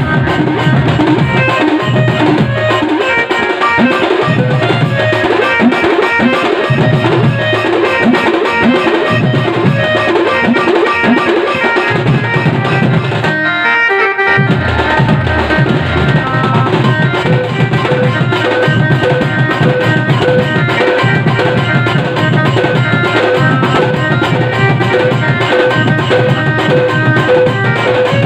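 Wedding band party playing loud dance music: a steady drum beat with a melody over it, breaking off briefly about halfway through before carrying on.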